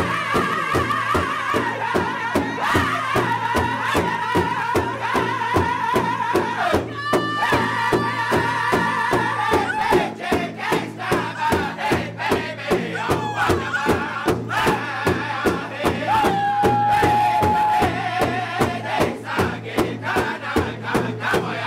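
Powwow drum group: several men sing together in high voices while beating one large hide drum with padded drumsticks in a steady pulse of about three beats a second.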